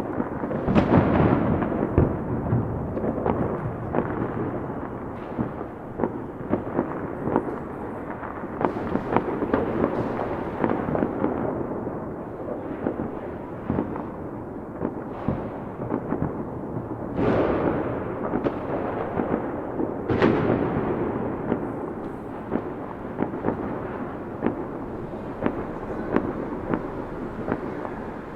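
A dense fireworks display: a constant rattle of crackling and popping with several big booms that rumble away, the loudest about a second in and around two-thirds of the way through.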